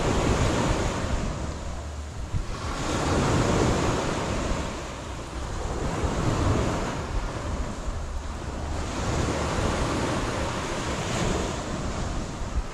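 Sea waves breaking and washing up the beach, swelling and falling away in a surge every two to three seconds, with wind buffeting the microphone.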